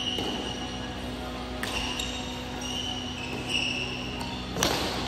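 Badminton rally: racquets striking a shuttlecock in several sharp cracks, the loudest about four and a half seconds in, with sneakers squeaking on the court floor between hits. A steady low hum runs underneath.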